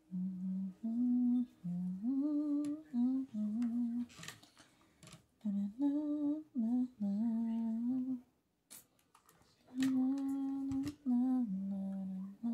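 A woman humming a tune, in three phrases of held notes with short pauses between them.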